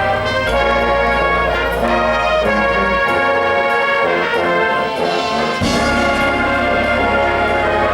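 Marching band playing: the brass section holds full sustained chords over deep bass notes, which change pitch about half a second in and again around three seconds in. A short bright splash of high sound rises a little past five seconds in.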